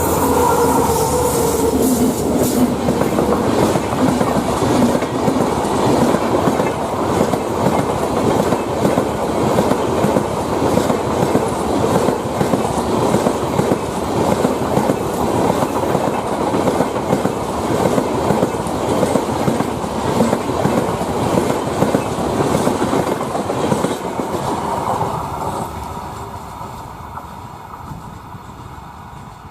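A train's rail cars passing close, wheels clattering over rail joints in a steady rapid rhythm. A brief wavering tone sounds in the first few seconds. The clatter dies away over the last five seconds as the train moves off.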